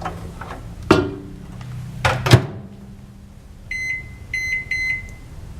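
Microwave oven being loaded and set: a few knocks and a clunk, then the keypad beeping several times in quick succession as the time and power level are entered.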